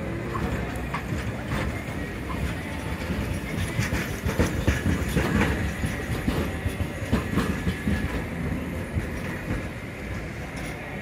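Toyama Chiho Railway De7000-series tram rolling slowly past on street track, with its wheels clicking and knocking over rail joints. The sound is loudest about four to seven seconds in, as the tram goes by.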